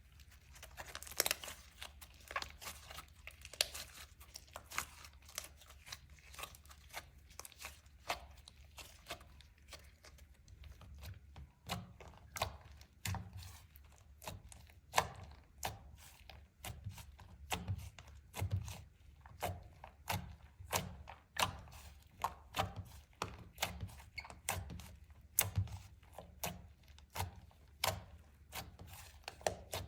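Clear slime mixed with eyeshadow and glitter being squeezed and stretched by hand, giving sharp wet clicks and pops at about one or two a second. From about twelve seconds in, soft low thuds come with the pops.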